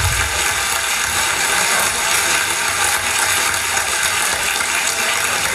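Rumba percussion ensemble of timbales with cymbal, congas and bongos playing together: a dense, steady clatter of strokes with the cymbal's wash on top.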